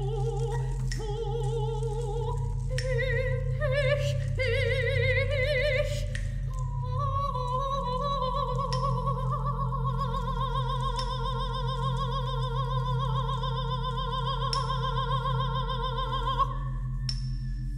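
Coloratura soprano singing with wide vibrato, stepping up in pitch over the first few seconds, then holding one long note that cuts off near the end. A steady low drone runs underneath, with a few short percussive strikes.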